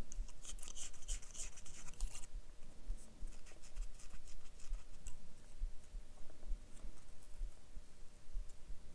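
Paper quilling strip scraping and rubbing as it is drawn over a needle tool and between the fingers to soften and curl it. The scratching is densest for the first two seconds, then comes in sparser strokes, with soft low bumps underneath.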